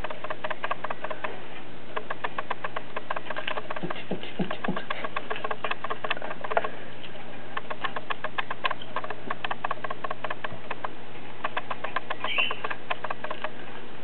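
Parakeet's claws and beak clicking and scratching as it climbs, in runs of quick light ticks with short pauses, and one short chirp near the end, over a low steady hum.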